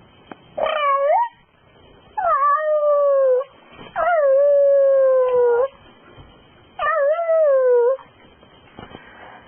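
A dog howling: four long howls, each sliding down in pitch, with short pauses between them.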